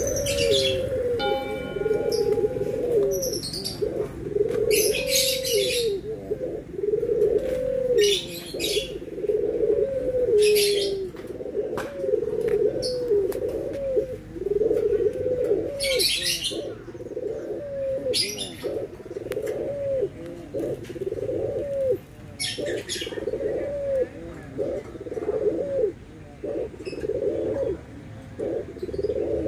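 Puter doves (Barbary doves) cooing over and over, a steady run of rounded coos about one every second or so. Short high chirps from other birds break in at intervals.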